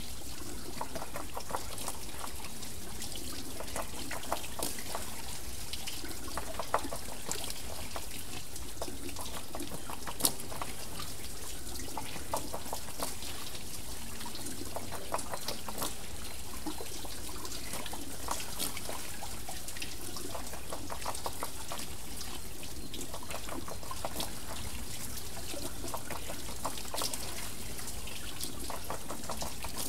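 Water trickling and splashing off a water wheel: a steady wash of running water dotted with small drips and splashes, and one sharper splash about ten seconds in.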